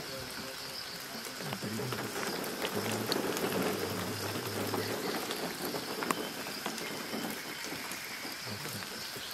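Forest ambience: a steady patter of many small ticks, like rain on leaves, over a steady high hum, with a low hum coming and going in the first half.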